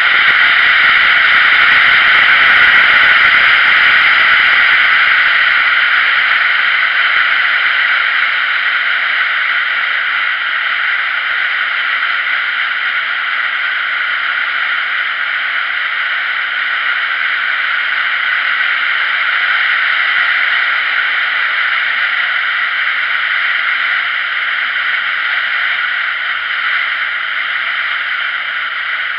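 Steady rushing hiss of wind and road noise on a camera mounted on a moving motorcycle, easing off slightly toward the end; no clear engine note comes through.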